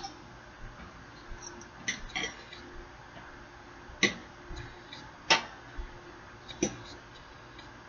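A fork clicking and tapping against a plate while potatoes are cut and eaten: a handful of sharp, separate clicks, the two loudest about four and five seconds in, over a faint steady hum.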